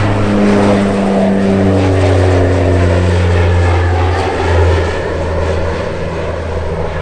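US Coast Guard HC-144 Ocean Sentry (CASA CN-235) flying past with its two turboprop engines running: a loud propeller drone whose pitch drops as it goes by, easing off a little near the end as it moves away.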